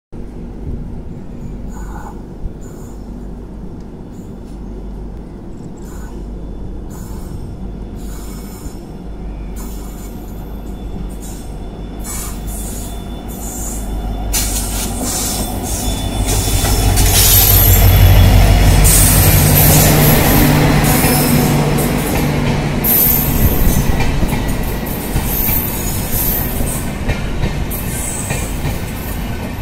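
WDP4 diesel locomotive, with its EMD 16-cylinder two-stroke engine, approaching and passing close by on the next track. Its engine grows louder and peaks just past the middle, followed by the steady clatter and squeal of the passenger coaches' wheels running past.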